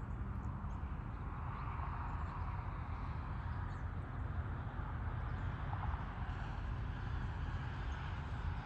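Outdoor morning ambience: a steady low rumble and broad hiss that swell slightly twice, with a few faint bird chirps.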